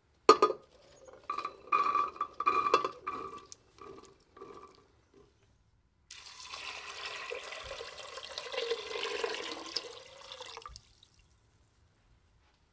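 Soaked chickpeas tipped into an empty stainless steel pressure cooker pot, clattering in a run of sharp hits that make the metal ring. About six seconds in, a stream of water pours into the pot for about five seconds, then stops.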